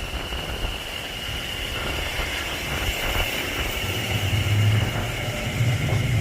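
A train approaching and growing steadily louder, with a steady high-pitched whine throughout and a low hum joining in from about four seconds in.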